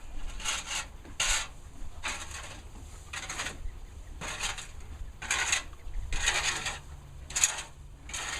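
Rhythmic scraping strokes, about one a second, of a tool scraping and lifting bedding while mucking out a stall.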